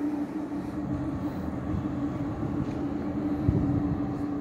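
Steady drone of a ferry's machinery heard on its open deck: a constant hum over a low, uneven rumble. A brief low bump about three and a half seconds in.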